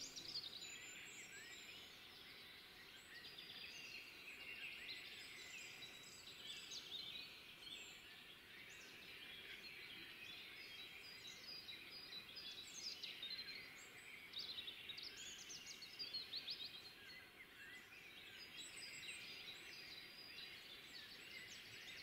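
Faint spring dawn chorus of forest songbirds: many overlapping short chirps and trills over a low background hiss.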